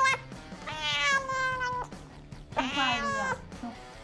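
Grey cat yowling in protest at the vet: two long drawn-out yowls, the second dropping in pitch at its end.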